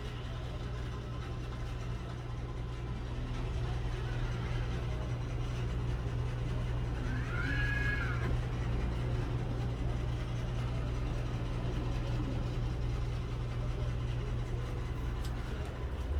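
Robot floor cleaner running with a steady low motor hum. About halfway through, a brief tone rises and then falls.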